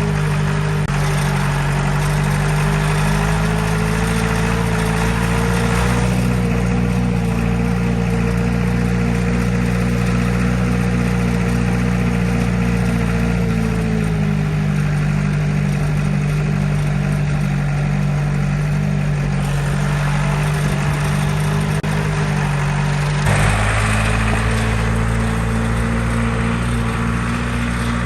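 John Deere 95 combine running steadily during corn harvesting, a loud continuous engine drone with the usual machinery clatter. Its pitch rises a little about six seconds in, drops back about halfway through, and shifts again near the end.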